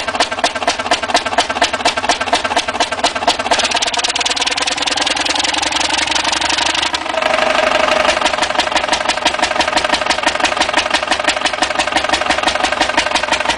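Huge Fairbanks Morse 32D diesel engine of 171.6 litres running steadily, a rough, fast, even train of firing beats. About seven seconds in the sound dips briefly and settles to a slightly different, steadier tone.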